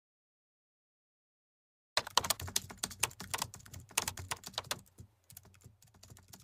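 Complete silence, then about two seconds in a rapid, irregular run of computer keyboard typing clicks that thins out toward the end.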